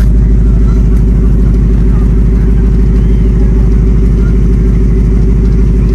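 Ford Mustang's engine idling steadily through its exhaust, loud and deep.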